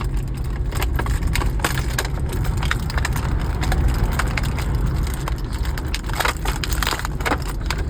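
Toy packaging crackling and clicking in a dense run of short snaps as it is pulled and handled, over the steady low rumble of a car interior.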